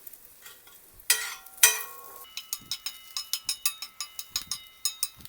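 A metal spoon clinking and scraping against a frying pan as spices are stirred. Two loud clanks come about a second in, then a quick run of ticks, about four a second, with the pan ringing faintly.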